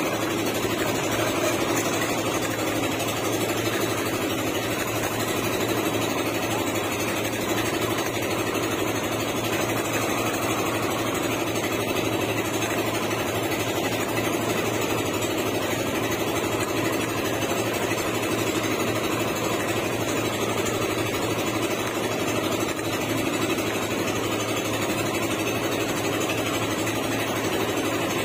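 A small engine on an outrigger fishing boat runs steadily with a rapid, even beat, unchanging in pitch and loudness.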